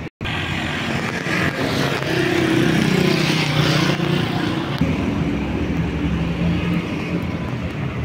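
Street traffic: the engines of passing cars hum and swell, loudest in the middle stretch, over a steady rush of road noise. The sound cuts out for a split second at the very start.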